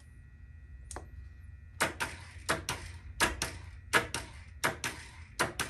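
A series of sharp clicks: a single one about a second in, then about ten more at uneven intervals, each with a brief ring.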